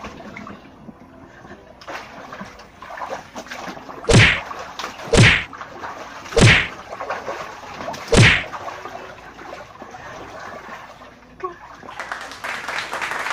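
Water splashing in a small inflatable pool as arms sweep through it in breaststroke strokes: four loud swishing splashes between about four and eight seconds in, more water sloshing near the end.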